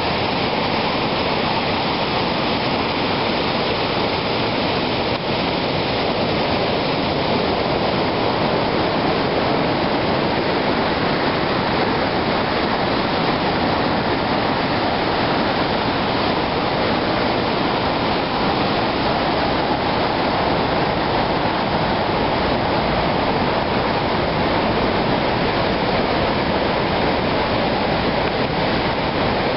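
Lynn Creek's whitewater rapids rushing steadily over boulders in a narrow rocky canyon.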